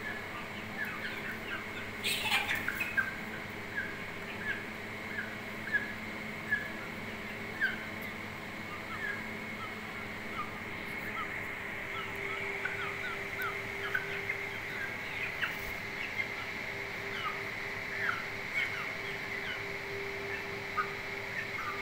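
Aseel chickens giving short, high peeping chirps, scattered all through while they feed on rice, with a single sharp knock about two seconds in.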